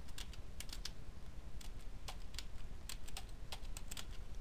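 Quiet typing on a computer keyboard: irregular key clicks in short runs, with brief pauses between them.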